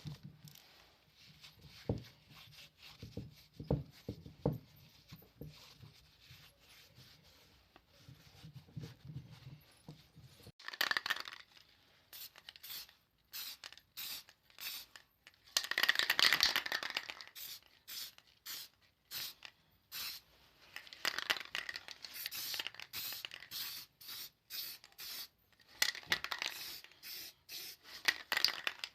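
Hand scraping and sanding strokes, irregular and hissy, starting about a third of the way in. Before that there is quieter handling with a few light knocks.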